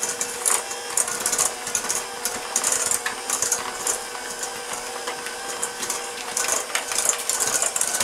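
Electric hand mixer running steadily, its twin beaters creaming softened butter and sugar in a stainless steel bowl. The motor holds one steady hum, with irregular clicks and scrapes as the beaters knock against the sides of the bowl.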